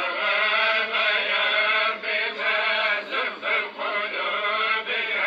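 A man's voice chanting in long, held, wavering melodic notes, with brief breaks for breath.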